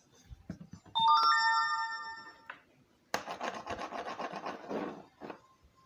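A chime of several bell-like tones rings out for about a second and a half, then a rapid, scratchy rubbing sound runs for about two seconds.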